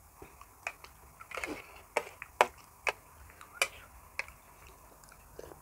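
Close-miked eating sounds from chewing raw shrimp: sharp, irregular clicks and smacks, about nine of them, with a short noisier wet patch about a second and a half in.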